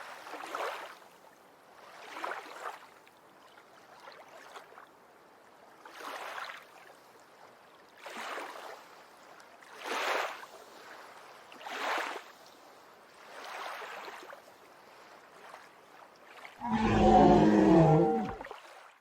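Soft whooshing swells about every two seconds, then a loud dinosaur roar sound effect about two seconds long near the end.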